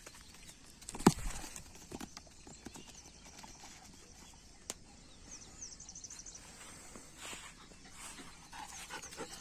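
A Doberman playing with a cricket ball: one sharp knock about a second in as the hard ball strikes, then scattered light taps and scuffs of the dog moving about.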